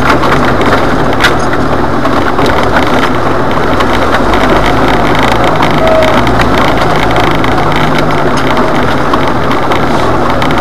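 Jeep Wrangler engine running steadily as the Jeep crawls up a rocky hill-climb trail, heard from inside the cab, with a few sharp clicks and knocks as it goes over the rocks.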